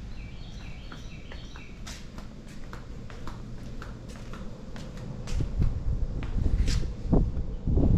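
Outdoor sounds: a bird chirping in short stepped notes, then a series of sharp clicks. From about five seconds in, a low rumbling noise swells and grows louder.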